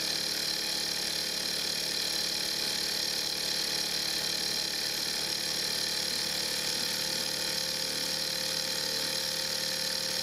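Small all-metal hot-air Stirling engine running steadily at about 2,200 RPM, its flywheel spinning with an even, unchanging whir.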